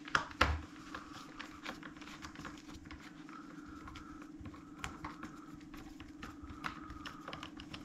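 Screwdriver with a star-drive bit undoing small screws from a plastic blind housing: light clicks and ticks of the bit and plastic, two sharper knocks near the start, and twice a faint squeak as a screw turns. A steady low hum runs underneath.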